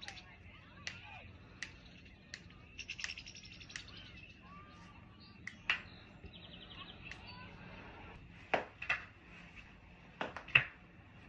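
Joints cracking and popping under chiropractic adjustment: a series of sharp, short cracks, several in quick pairs, the loudest near the end. Brief rapid chirping trills sound between them.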